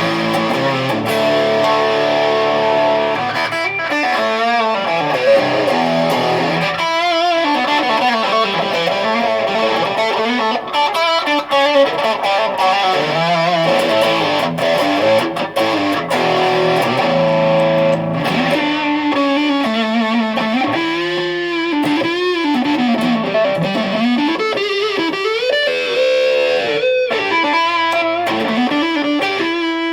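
Gibson Les Paul Tribute electric guitar played through a Fender Vaporizer amp with distortion: a run of lead lines with several string bends in the second half.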